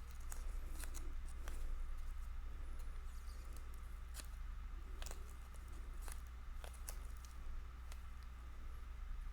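Scattered light clicks and rustles of trading cards in plastic sleeves and paper being handled and shuffled through while searching a stack, over a steady low hum.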